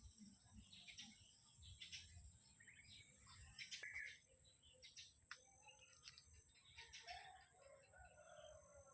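Faint birds chirping all around, short calls repeating every second or so over a steady high-pitched hiss. A few lower, drawn-out calls come near the end.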